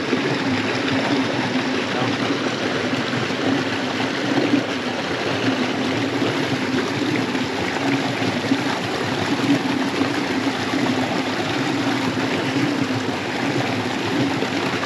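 Small creek running steadily, an even rush of flowing water.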